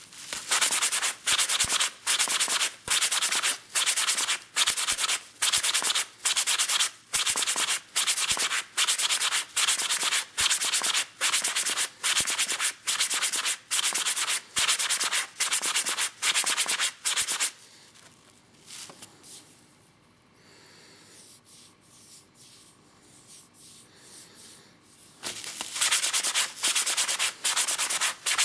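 A turned elm egg is rubbed by hand back and forth on a sheet of abrasive paper laid flat on a bench, a rasping sanding stroke about twice a second. About two-thirds of the way through the strokes stop for several seconds, leaving only faint handling sounds, then start again near the end.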